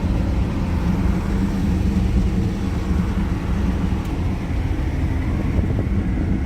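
Cat 308E2 CR mid-size excavator's diesel engine running steadily, heard from inside the enclosed cab as a constant low hum.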